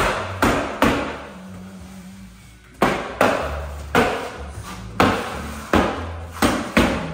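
Hammer tacker driving staples through asphalt-saturated building paper into OSB sheathing: about a dozen sharp blows that ring in a hard, empty room. Three come close together at the start, then a short pause, then a quick irregular run of strikes.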